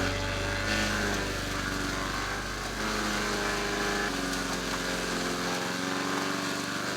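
MTD Yard Machines wood chipper's small gas engine running steadily.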